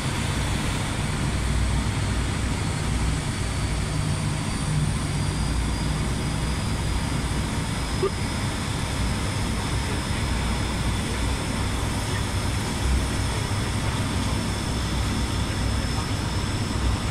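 Steady cockpit noise of an ATR 72-600 on final approach: the low drone of its Pratt & Whitney PW127 turboprop engines and propellers, mixed with airflow noise and a few thin steady high tones.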